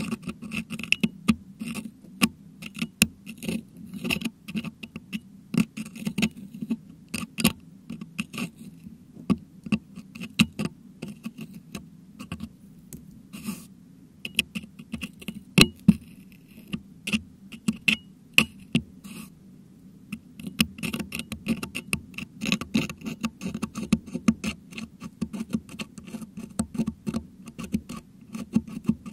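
Metal dental hook scraping and picking at a Blue Yeti microphone's metal grille to dig out crushed meringue, heard right at the microphone: rapid, irregular clicks and scratches with a short lull about twenty seconds in.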